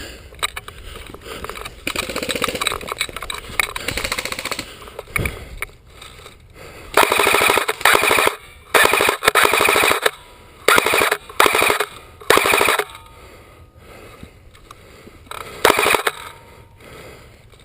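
ARES Tavor 21 airsoft electric rifle firing on full auto: five bursts of about a second or less in quick succession starting about seven seconds in, then one more short burst near the end, each a rapid even rattle of shots.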